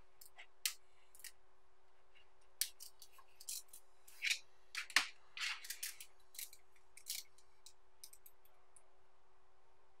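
Small neodymium magnetic balls clicking and snapping against one another as a chain of them is pulled apart and rejoined by hand: irregular sharp clicks, busiest through the middle with the loudest about halfway, dying away in the last couple of seconds.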